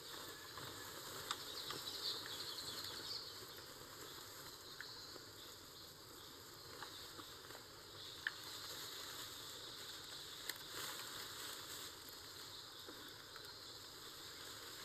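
Faint jungle ambience with scattered soft rustles and a few sharp snaps, like footsteps and twigs underfoot as soldiers move carefully through undergrowth.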